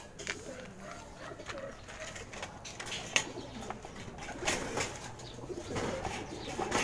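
Pigeons cooing in a loft, with a few short clicks scattered through.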